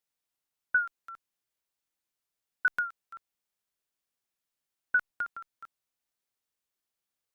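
Digital countdown-timer beep sound effect: short electronic blips of one pitch, each dipping slightly, in quick groups of two to four, about every two seconds, with silence between.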